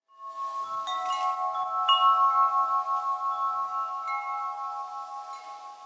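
Chimes struck a few times, their clear notes ringing on together and slowly fading away.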